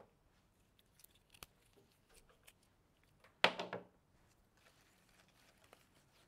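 Flower stems being handled on a worktable: faint scattered clicks and rustles, then one louder crisp snip about three and a half seconds in as a stem is cut.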